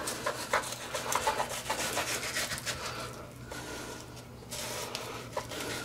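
Knife blade scraping and slicing a mangrove snapper fillet free of its skin against a plastic cutting board, in irregular short strokes with a brief lull past the middle.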